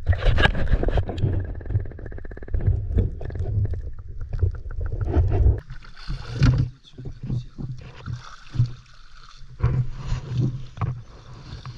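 Shallow water sloshing and splashing as legs wade through it and a hand plunges in. For the first five or so seconds it is a dense, muffled churning, heard with the microphone under water, and it gives way to separate splashes.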